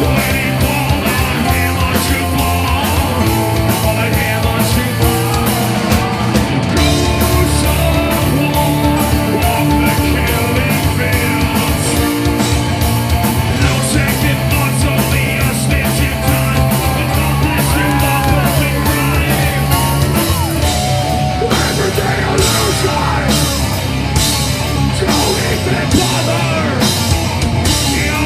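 Live rock band playing loud: electric guitar, bass and drum kit, with the singer singing and shouting into a microphone.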